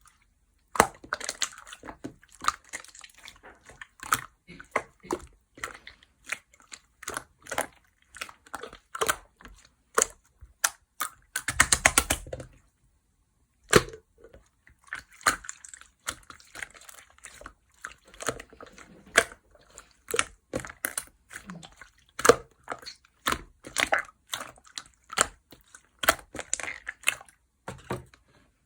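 A large, thick white slime being squeezed and poked by hand, making irregular sticky clicks and pops, with a quick run of squelches about twelve seconds in.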